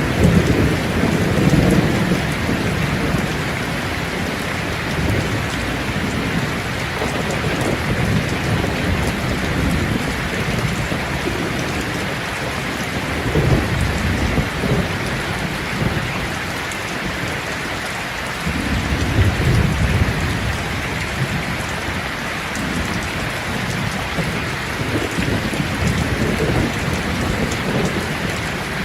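Steady rain falling, with low rolls of thunder rumbling in and out: strongest right at the start, again about halfway through, and once more later on.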